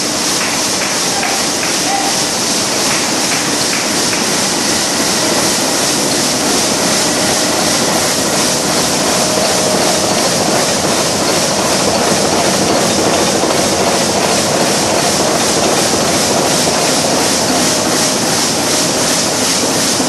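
Zangs 117 Schiffli embroidery machine running on a newly installed Indian-made servo drive: a loud, steady mechanical clatter. A faint steady whine joins about five seconds in.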